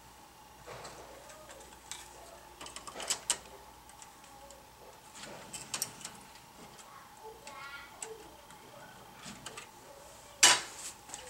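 Scattered light clicks and taps of HO scale model freight cars being set onto the track and lined up by hand, with a short run of rapid ticks about halfway through and one sharper click near the end.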